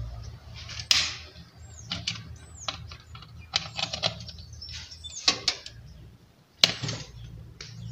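Sharp clicks and knocks of a three-pin plug being pulled from one wall socket and pushed into the next on a modular switchboard, with the loudest knocks about a second in and near the end. Small birds chirp in the background.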